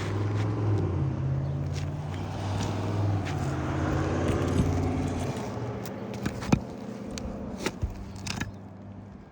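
An engine running with a low, steady hum that fades away near the end, with scattered sharp clicks and scrapes over it.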